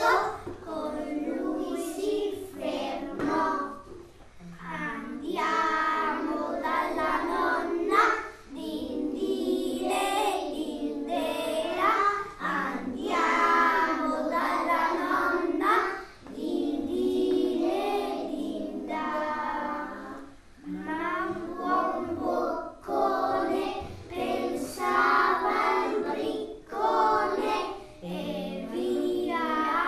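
A group of young children singing a song together in phrases of a couple of seconds, with short breaks between them.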